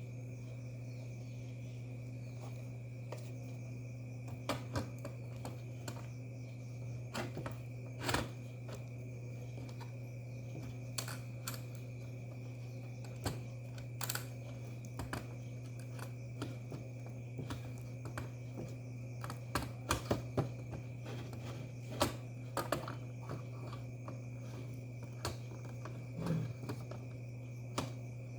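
Scattered small clicks and taps of handling, irregular and close together at times, over a steady low electrical hum with a faint high tone.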